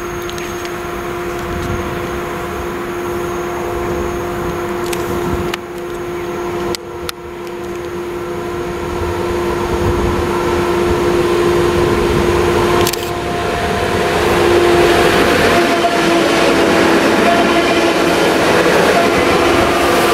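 Newag Impuls 36WEd electric multiple unit approaching along the platform, a steady whine under wheel and rail noise that grows louder over the last several seconds as the train draws level. A few sharp clicks come in the first half and again about two-thirds of the way through.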